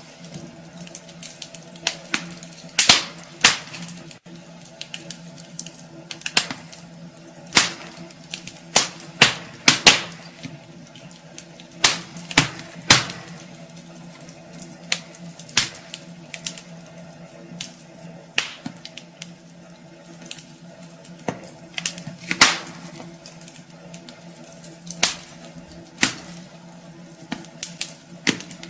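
Wood fire crackling in a fireplace: irregular sharp pops and snaps, some much louder than others, over a faint steady hum.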